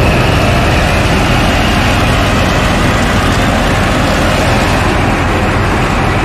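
Fiat 640 tractor's four-cylinder diesel engine running steadily under load while it belt-drives a threshing machine that is being fed crop stalks. The engine and the thresher make one loud, even mechanical sound.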